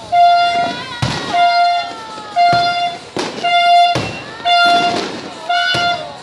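New Year's fireworks banging, with a horn honking over them in short blasts of one steady pitch about once a second and falling whistles in between.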